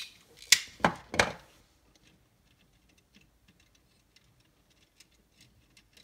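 A few sharp clicks and knocks from small parts and tools being handled on a workbench, four in quick succession in the first second and a half, then faint scattered light ticks.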